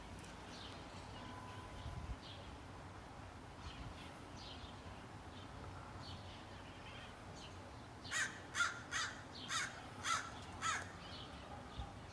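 Bird calls: faint short chirps, then a run of about six loud calls in quick succession about eight seconds in.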